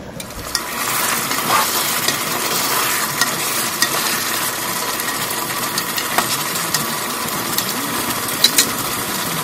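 Chicken masala sizzling in a large pot while a wooden spoon stirs it, with scattered clicks of the spoon against the pot. The sizzle swells about half a second in. The curry is being cooked down on the heat to dry off its water.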